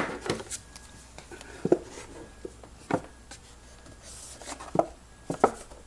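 Unboxed smart-lock parts and their packaging being handled: an irregular series of light knocks and taps, with a short scrape or rustle about four seconds in.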